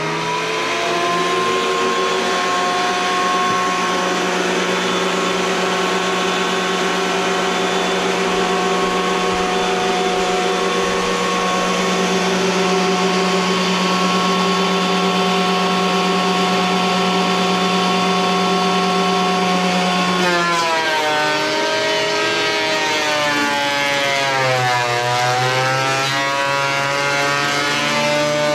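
Craftsman thickness planer running with a steady whine, its pitch sagging and wavering in the last third as it takes a cut through a chainsaw-milled plank.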